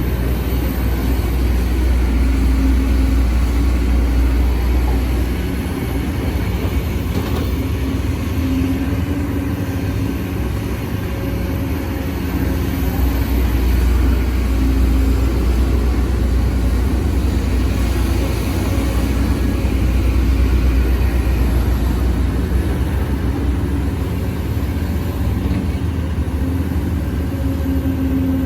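Sumitomo SH210F excavator's diesel engine running under working load, its note swelling and easing every few seconds as the hydraulics dig and swing.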